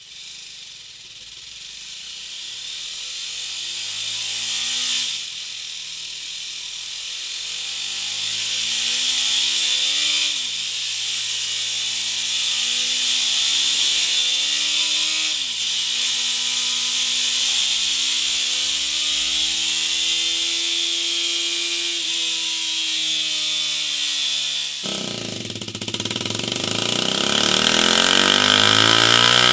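BMW G 310 R's single-cylinder engine revving through its stock silencer: engine speed climbs for several seconds and drops back, three times, then climbs more slowly and falls. About 25 seconds in it changes to the same engine running through a MIVV GP Pro aftermarket silencer, louder and lower-pitched.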